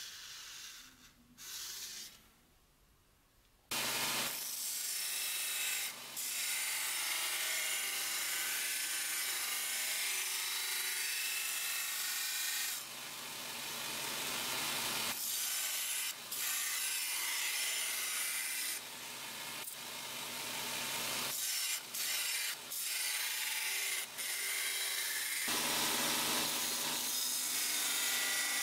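A marker scratching in short strokes along a steel blade, then from about four seconds in a belt grinder grinding the edge bevel of a knife blade made of old saw-blade steel: a steady, loud abrasive grinding with a few brief breaks as the blade is lifted off the belt and set back.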